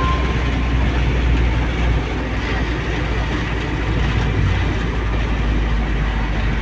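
Volkswagen truck's diesel engine running steadily, heard from inside the cab while driving, under a steady hiss of heavy rain and tyres on a flooded road.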